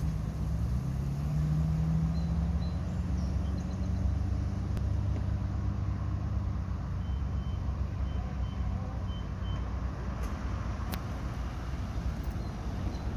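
Deep, steady engine rumble with cars passing. A row of faint, short high beeps comes about halfway through.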